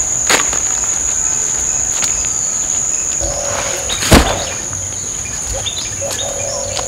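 Steady high-pitched shrilling of insects, with one loud thump about four seconds in.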